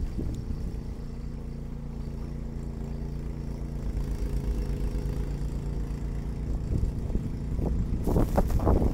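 Ariens Deluxe 30 two-stage snowblower engine running steadily under load while blowing snow. Near the end, a loud crackling rush as the blown snow plume sweeps over the microphone.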